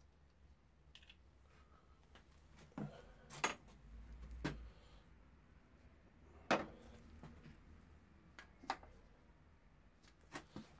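A handful of separate metallic clinks and knocks from hand tools and small metal parts being handled while the motorcycle's inlet rubbers are unbolted. The sharpest clinks come about a third of the way in and again just past halfway.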